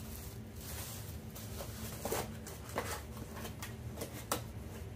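Plastic bag and bubble wrap crinkling and rustling as parts are handled out of a box, with a few sharper crackles about two, three and four seconds in, over a steady low hum.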